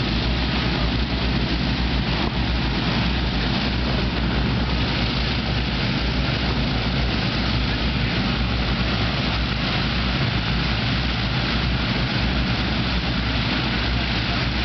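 Avro Shackleton's Rolls-Royce Griffon V12 piston engines running steadily, turning their contra-rotating propellers, with a deep, even engine note.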